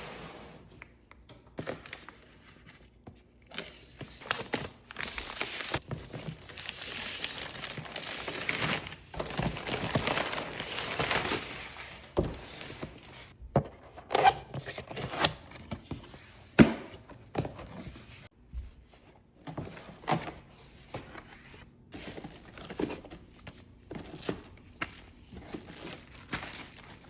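Packaging being unpacked: plastic and cardboard crinkling and tearing for several seconds, then scattered knocks and thunks as items are handled.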